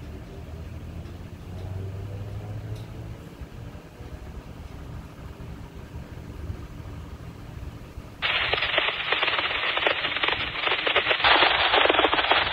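Double-stack freight train passing with a steady low rumble of wheels on rail. About eight seconds in, a much louder crackling hiss of radio static cuts in suddenly, as from a scanner's squelch opening.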